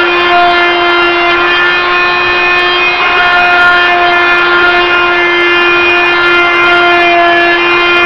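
Hyper Tough 2.1-amp oscillating multi-tool running, loud and steady, its scraper blade scraping linoleum off a wood subfloor. The buzz holds one pitch throughout while its upper overtones come and go as the blade bears on the floor.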